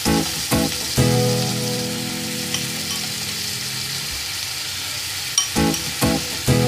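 Grated onion sizzling steadily in hot oil with cumin seeds in a non-stick kadai, just after being added for frying, with a few short knocks near the start and near the end.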